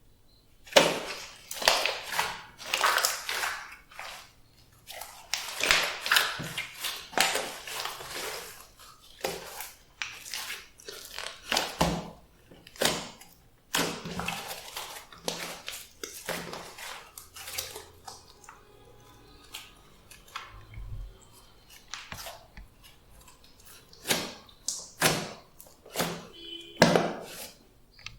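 Hands squishing and kneading a clear slime mixed with store-bought slime and clay, giving irregular wet crackling squelches, with a quieter stretch about two-thirds of the way through.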